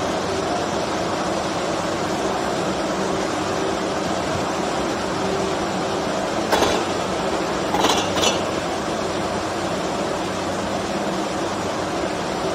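Steady machinery hum of a stainless steel wire annealing line running. About halfway through come a few short metallic clinks, steel wire spools knocking together as they are handled.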